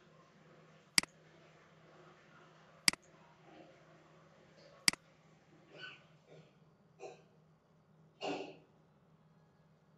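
Computer mouse clicks: three sharp single clicks about two seconds apart, followed by a few short breathing sounds and sniffs over a faint steady hum.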